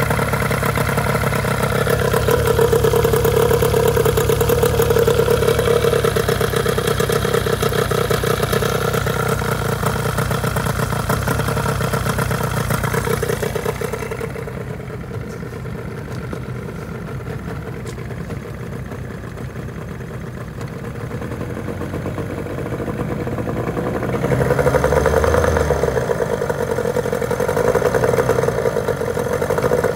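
Johnson 15 HP two-stroke outboard motor idling steadily out of the water on a garden hose, with water spraying from the lower unit. It goes quieter for about ten seconds midway, then comes back up.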